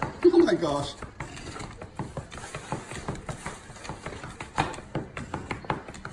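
Plastic takeout container crackling and clicking as it is opened and handled, in many sharp irregular clicks. Near the start a short pitched sound slides down in pitch.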